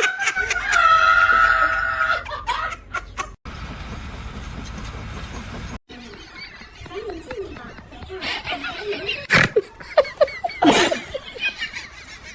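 People's voices laughing, with a held high squeal near the start and short vocal bursts later, broken by two sudden dropouts.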